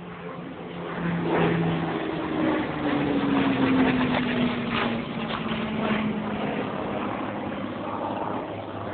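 A Hawker Hurricane's Rolls-Royce Merlin V12 engine as the fighter flies past. The engine sound swells to its loudest a few seconds in, and its note falls steadily in pitch as the aircraft goes by.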